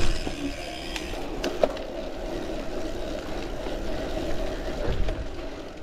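Gravel bike rolling along a dirt forest trail: steady tyre and trail noise with bike rattle, a few sharp clicks about one and a half seconds in and a low thump near the end.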